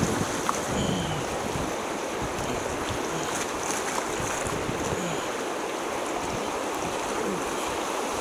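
Whitewater rapids rushing and splashing around a kayak running through them: a steady rush of water.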